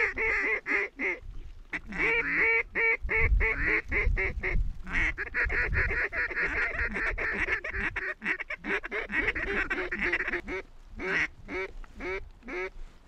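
Many overlapping mallard-style quacks and chattering calls, loud and nearly continuous, with rapid clicking runs of notes near the end.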